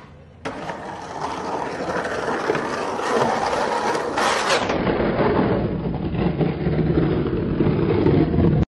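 Skateboard landing hard about half a second in after a stair jump, then its wheels rolling over rough concrete in a loud steady rumble.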